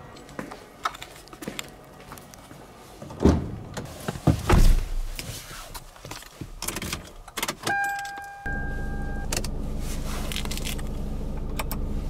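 Getting into a Kia car: clicks and handling noises, a car door shutting with a heavy thump about four and a half seconds in, and a two-tone warning chime. About eight and a half seconds in the engine starts and runs at a steady idle, heard from inside the cabin.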